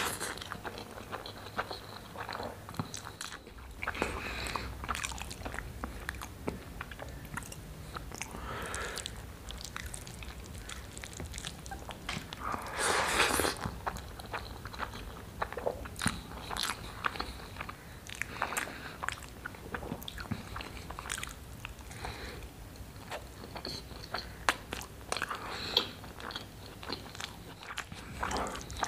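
Close-miked wet chewing and lip smacking of a mouthful of rice and chickpea curry, with the soft squish of fingers working the rice and gravy. There is one louder stretch about halfway through.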